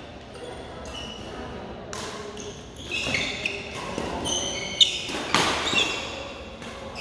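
Badminton rally: rackets striking the shuttlecock in sharp smacks, the loudest a little under five seconds in, with court shoes squeaking on the floor between shots, echoing in a large hall.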